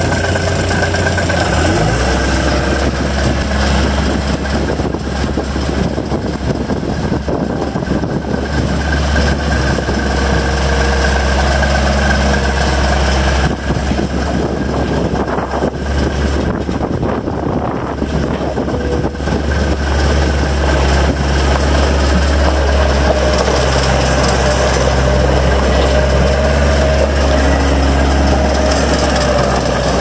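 Gehl 5635 SXT skid steer loader's diesel engine running steadily while the machine drives and turns, with a steady high whine over the engine note.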